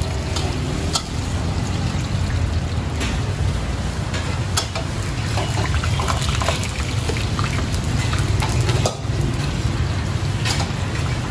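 Metal ladle scraping and clinking against a steel wok as fried short noodles are stirred and scooped out, a few sharp clinks scattered through, over a steady low rumble.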